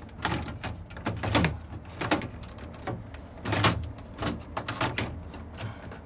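Thick foam sealing panel being cut and worked by hand with a knife: a dozen or so irregular squeaky rubbing and scraping strokes, the loudest a little past halfway.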